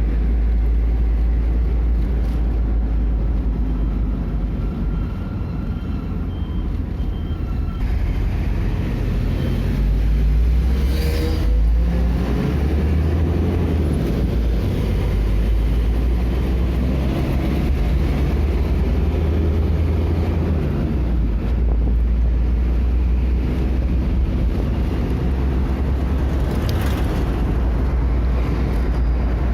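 Motor vehicle on the road: a steady low engine and road rumble, with a brief shift in pitch about eleven seconds in.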